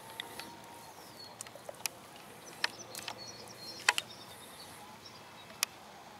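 Quiet open-air background with faint high bird chirps, broken by a few sharp clicks and slaps, the loudest about four seconds in, as a carp is handled on a landing net.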